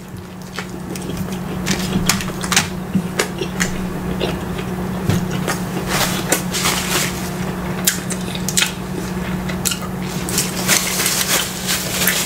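Close-miked chewing and mouth sounds of a man biting into and eating a burger, a string of wet, crisp clicks and smacks, over a steady low hum.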